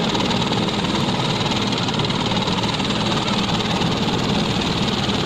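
Light helicopter running at ground idle: a steady, loud engine and rotor noise.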